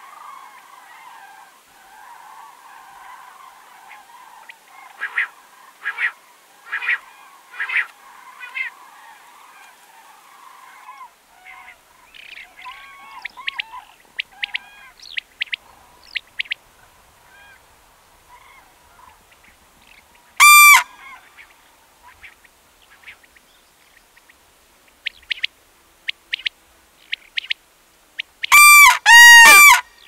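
Common cranes calling: scattered fainter calls at first, then one loud trumpeting call about two-thirds of the way in and three loud trumpeting calls in quick succession near the end.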